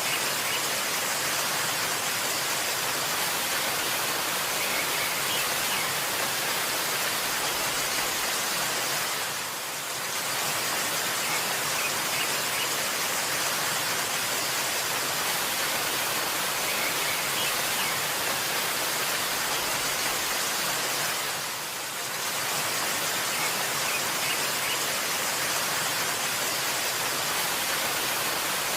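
Waterfall: a steady rush of falling water, dipping briefly twice.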